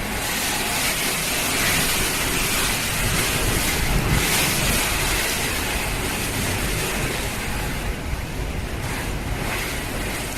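Torrential rain pouring down with rushing water, a steady, dense hiss.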